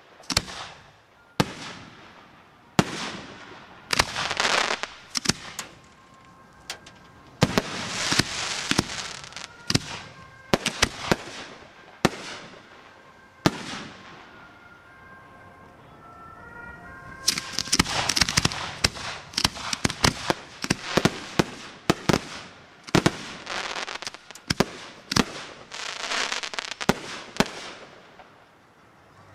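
Aerial firework shells bursting overhead in quick succession, each a sharp bang, some followed by a short crackling tail. There is a brief lull about halfway through, then a dense volley of bursts.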